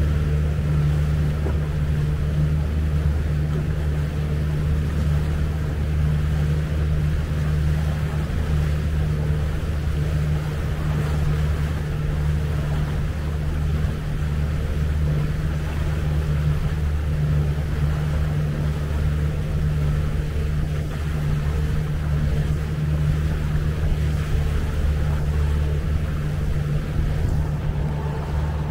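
Outboard motor of a Tahoe T16 bowrider running steadily underway, a constant low drone, with a hiss of wind and water rushing past.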